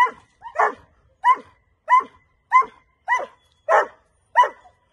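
Doberman puppy barking steadily, eight sharp barks about every 0.6 s, demand-barking at a tennis ball held still across a fence in a bark-on-command training drill.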